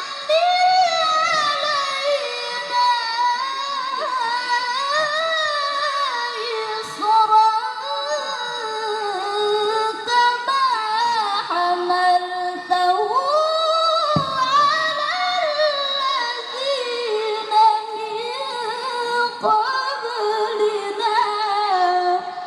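Solo voice chanting Quranic verses in a slow, melismatic style, holding long ornamented notes that slide up and down in pitch, with short breaths between phrases.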